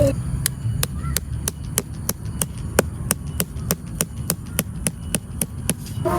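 Knife chopping on a cutting board in a steady rhythm of sharp strokes, about three a second.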